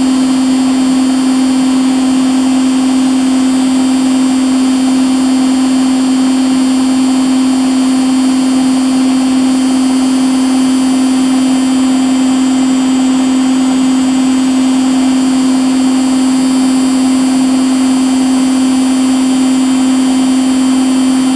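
Domestic appliance motor running steadily: a constant hum with a steady hiss, unchanging throughout.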